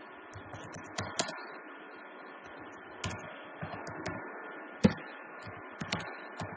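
Keystrokes on a computer keyboard: irregular, scattered taps, the sharpest about five seconds in, over a steady background hiss.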